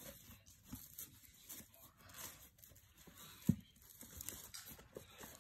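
Soft rustling and crinkling of packaging being handled during an unboxing, with small clicks throughout and one sharper knock about three and a half seconds in.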